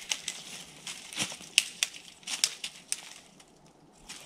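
Dry leaves and twigs crackling and crinkling in irregular sharp clicks, which thin out near the end.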